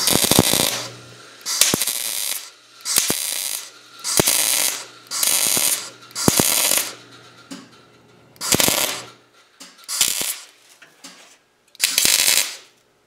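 MIG welder arc laying short tack welds to re-weld a steel tab: about nine crackling bursts, each half a second to a second long, with short pauses between.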